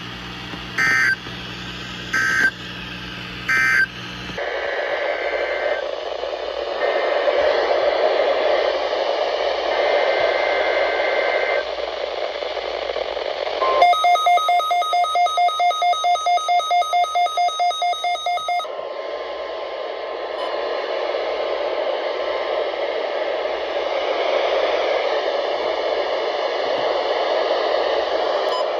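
Weather radio receiver: three short buzzy SAME digital data bursts about a second apart, the end-of-message code after the weekly test, then steady radio static with a faint whistle. Near the middle, about four seconds of rapid beeping, roughly four beeps a second, over the static.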